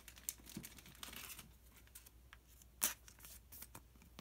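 Soft rustling and clicking of Pokémon trading cards and a plastic card sleeve being handled, with one sharper tap nearly three seconds in.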